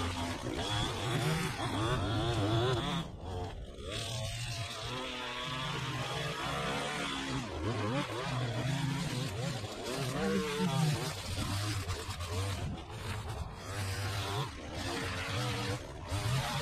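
Gas string trimmer engine running as it edges along a concrete curb, revving up and down with the throttle and easing off briefly about three seconds in.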